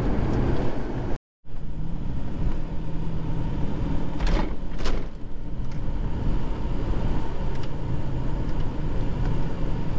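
Steady road noise inside a moving car's cabin: tyre and engine rumble, broken off for a moment by a silent edit cut about a second in. Near the middle come two short knocks about half a second apart.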